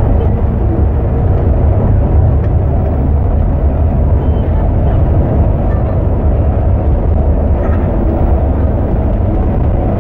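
Scania bus cruising on the highway, heard from the driver's cab: a steady, loud low rumble of engine and tyre noise.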